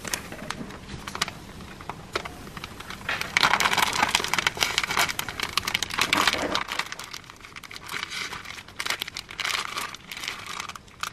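Plastic piping bag crinkling as it is squeezed and wrung, with the crackle of shaving foam being pushed out of it. The crinkling is loudest a few seconds in and again near the end.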